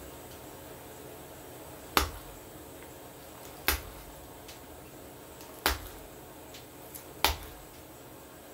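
A metal blade is worked against a sheet laid over the knee, giving four sharp clicks roughly one and a half to two seconds apart, over a low steady hum.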